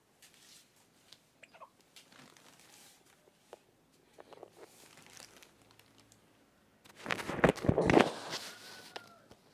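Close handling noise: rustling and crinkling of plastic with scattered small taps, then a much louder burst of crackling and knocks about seven seconds in.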